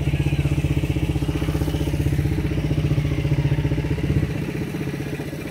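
Quad bike (ATV) engine idling close by with a steady, rapid putter; a little past four seconds in it becomes quieter and its low end drops away.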